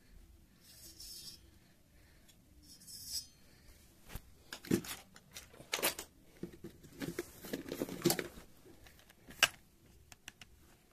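Hands handling small tools and parts on a work surface. Two short scraping rustles are followed by an irregular run of clicks and knocks, several of them sharp.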